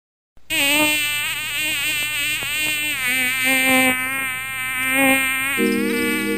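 Buzzy synthesizer lead, starting about half a second in, its pitch wavering and gliding up and down. Sustained chord notes join it near the end.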